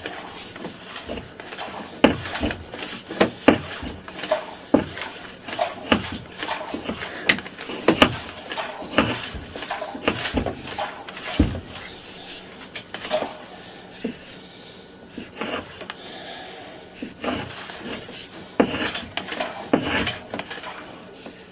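Sewer inspection camera's push rod being fed by hand down a cleanout, with irregular clicks, knocks and rattles, several in quick runs, a few louder ones and short pauses between.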